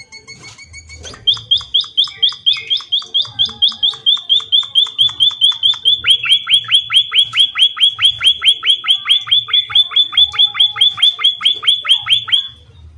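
Small songbird (emprit / pipit) singing a fast, even series of sharp high chirps, about five or six a second. About halfway through the notes turn longer and louder, each sweeping downward, and the run stops abruptly near the end.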